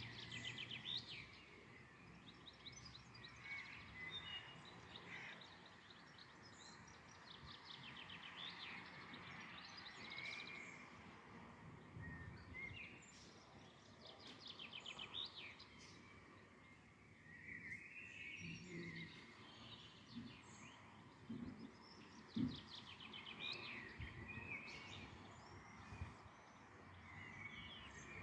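Faint birdsong: small birds singing short trilled and chirping phrases over a low outdoor hiss. A single brief thump comes about two thirds of the way through.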